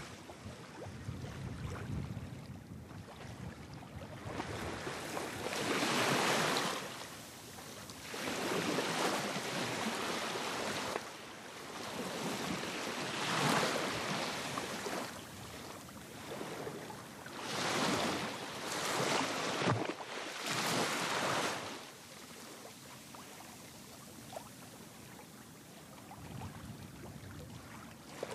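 Waves washing in: several surges of rushing water noise a few seconds apart, each a second or two long, over a low rumble of wind on the microphone. The surges die down near the end.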